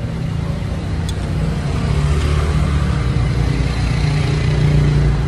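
A motor vehicle's engine running close by, a steady low hum that grows somewhat louder about two seconds in.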